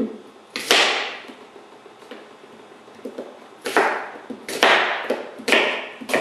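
A large kitchen knife chopping apples on a plastic cutting board: five sharp chops at uneven intervals, the first about a second in and the rest close together in the second half, each with a short ring-out, plus a few lighter knocks.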